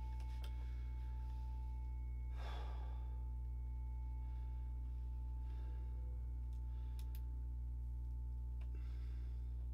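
Steady low electrical hum with a faint, steady high tone over it. About two and a half seconds in comes a breathy exhale, and there are a couple of faint clicks.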